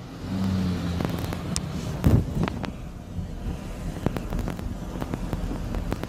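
Vehicle noise as picked up by a dashcam inside a car: a steady low engine and road hum, with scattered clicks and a louder thump about two seconds in.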